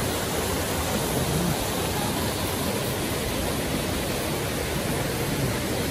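Shallow mountain stream rushing over rocks and stones: a steady, even rush of water.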